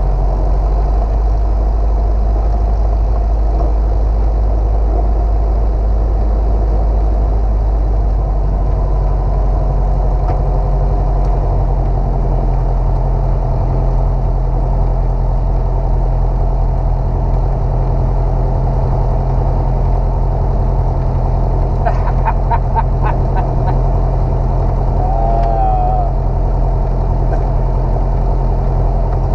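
Single-engine light airplane's piston engine and propeller running steadily, heard from inside the cabin as a loud, even drone. About 22 seconds in comes a short run of quick clicks, and a brief wavering tone a few seconds later.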